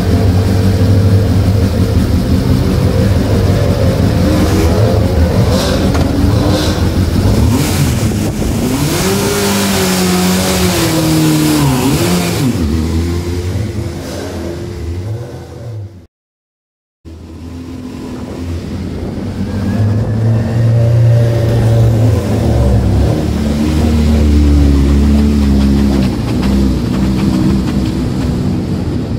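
Suzuki Hayabusa inline-four motorcycle engine in a race car, running and revving up and down in several quick swells as the car pulls away, then fading. After a brief cut to silence, the engine is heard again, rising and falling in revs.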